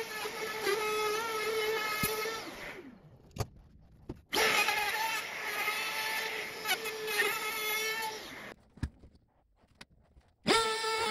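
DeWalt router running at speed while it cuts along the edge of a wooden workpiece: a steady high whine with a busy, rough edge from the bit in the wood. It runs in two stretches. The first winds down about three seconds in, and the second starts suddenly about a second later and cuts off abruptly near the end, with near quiet and a few clicks in between.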